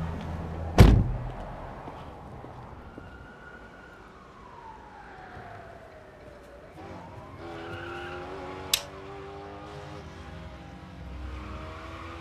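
A car door shuts with a heavy thunk about a second in. After it come quieter sounds: a slowly falling tone and, later, a single sharp click.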